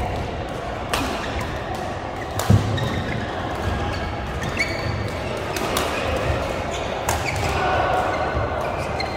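Badminton rally: rackets striking the shuttlecock with four sharp pops about a second and a half apart, over footwork thudding on the court floor. Voices murmur from other courts, echoing in a large hall.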